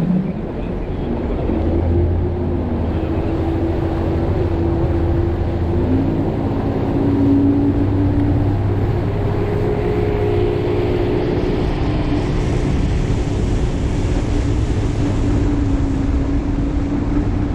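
Bass boat's outboard motor running under way, its note stepping up a couple of times as the boat gathers speed. A rush of wind and water grows louder from about twelve seconds in.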